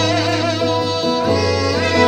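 Live folk music: an acoustic guitar accompanying held, wavering melody notes, most likely the singers' voices.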